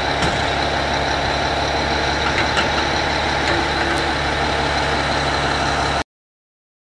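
Heavy diesel engine of earthmoving machinery running steadily, with a few faint clicks. The sound cuts off abruptly about six seconds in.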